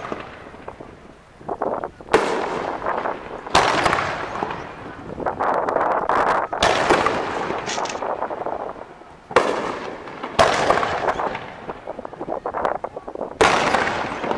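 Aerial firework shells bursting in a series of sharp bangs, roughly one to three seconds apart, about six in all. Each bang trails off over a second or more.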